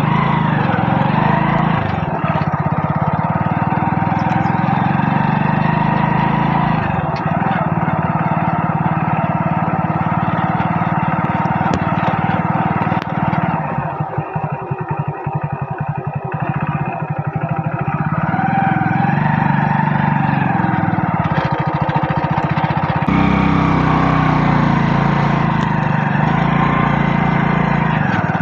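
Motorcycle engine running during a ride, easing off for a few seconds around the middle before picking up again.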